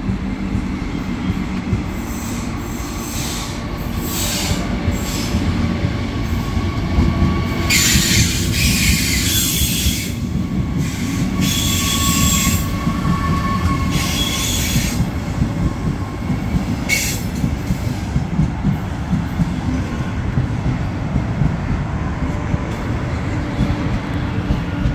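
Israel Railways double-deck passenger train running past along the platform, its wheels rumbling steadily. High-pitched metallic squealing comes in bursts from about 8 to 15 seconds in, as the locomotive goes by.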